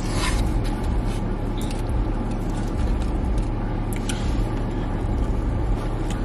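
Steady low hum of a car running, heard inside its cabin, with a few light clicks and the smacking of someone chewing food.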